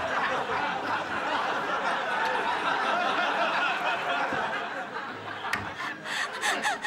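Studio audience laughing, a long, dense spell of laughter from many people that thins out over the last couple of seconds.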